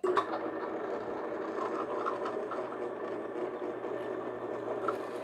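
Drill press running with a hole saw cutting into a diamond-plate panel: a steady motor hum under the grinding of the cut. The hole saw wobbles in the cut, which leaves the hole slightly oversized.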